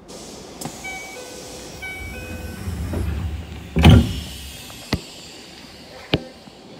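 Keisei commuter train's door chime sounding in short tones, then the sliding doors shutting with a loud thud about four seconds in, followed by two sharp clicks as the train pulls out.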